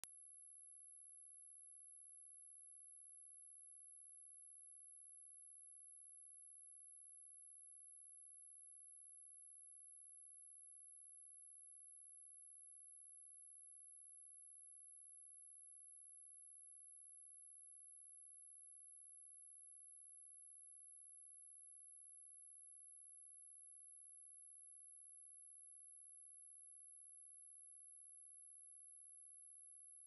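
A pure sine-wave test tone at 11,063 Hz, a single high-pitched steady whistle that holds without change, played for speaker testing and cleaning.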